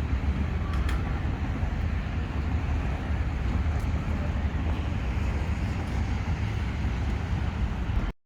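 Steady low outdoor rumble, heavy in the bass, of the kind heard along a busy urban waterfront, cutting off abruptly near the end.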